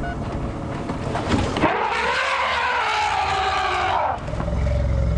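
African elephant trumpeting: one long, harsh call of about two and a half seconds, starting a little under two seconds in. Its pitch rises as it starts and falls away as it ends. The elephant is disturbed and is driving off African wild dogs, and a low rumble follows near the end.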